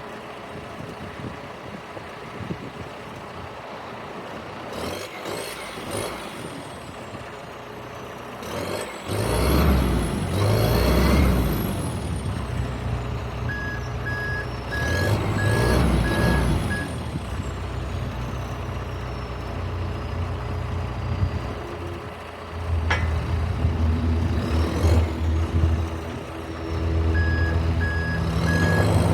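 John Deere 310L EP backhoe loader's diesel engine running and revving up and down several times, a high whine rising and falling with each rev. A steady series of reverse-alarm beeps sounds about halfway through and again near the end, and a sharp click comes at about two-thirds through.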